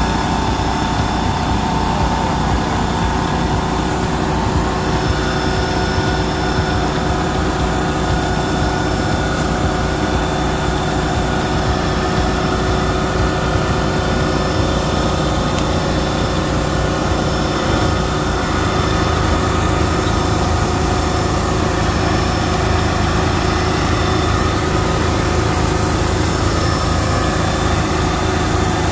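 Small engine on a mobile detailing trailer rig running steadily at idle, with a slight change in its low hum about eighteen seconds in.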